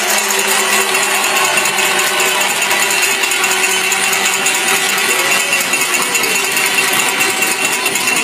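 Hockey arena crowd cheering and shouting, with a dense rattling clatter of noisemakers running through it.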